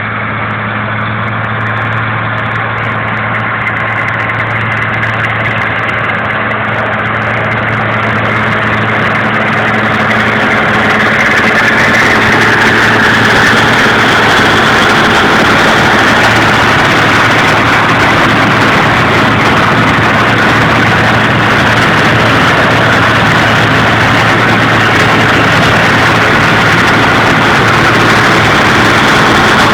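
Farm tractor engine running steadily with dense mechanical noise, the kind a working baler makes. The sound grows louder over the first ten seconds or so, then holds steady.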